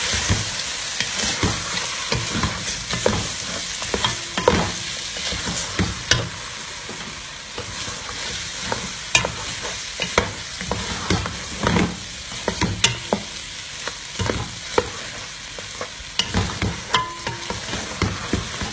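Meat, okra and tomato paste sizzling in oil in a metal pot while a spoon stirs them, with irregular scrapes and knocks of the spoon against the pot.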